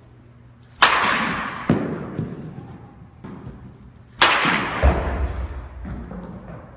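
Baseball bat striking a pitched ball twice, about three and a half seconds apart. Each hit is a sharp crack that echoes off the room, followed within a second by a lighter thud.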